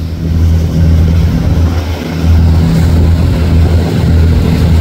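Fishing boat's engine running at speed, a loud steady low drone, over a haze of rushing water.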